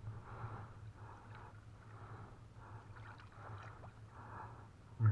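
Trammel net being hauled hand over hand out of a river, water streaming and splashing off the mesh in soft, regular swishes with scattered drips. A brief louder bump comes right at the end.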